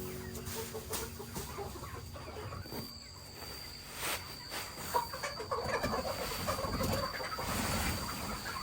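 A flock of chickens clucking, busier in the second half, with a few sharp knocks and a faint steady high whine behind them.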